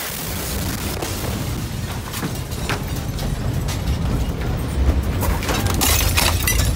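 Aftermath of the 2020 Beirut port explosion's blast wave: a sustained low rumble from the explosion, with scattered clicks and clatter of falling debris and shattered window glass. A brighter burst of glass rattling and tinkling comes about six seconds in.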